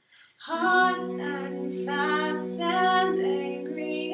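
Female voices singing a cappella in close harmony. After a brief silent breath, a held backing chord comes in about half a second in, with a moving line of sung syllables over it.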